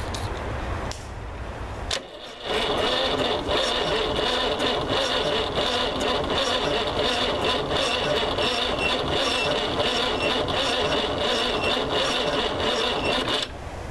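Starter motor cranking the 1991 Iveco truck's diesel engine for about eleven seconds, with a steady pulsing beat and a high whine, then cutting off suddenly. The engine turns over slowly and does not catch: it has stood for five years on old, bad fuel, which the owner suspects has a bad fuel line.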